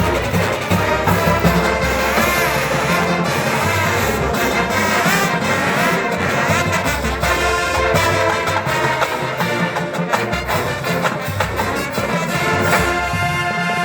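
Marching band playing a brass-led tune, with trumpets and trombones over a steady beat.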